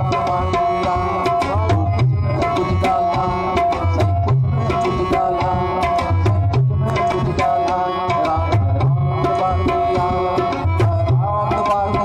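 Instrumental music led by a tabla-type hand drum: many quick strokes over a repeating pattern of deep bass strokes, under a sustained melody line.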